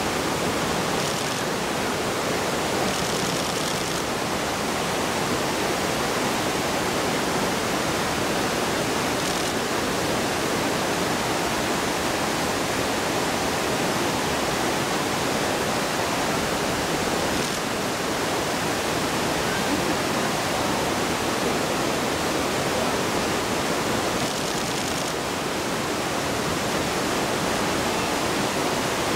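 River water running steadily: an even, unbroken rush with no other distinct sound.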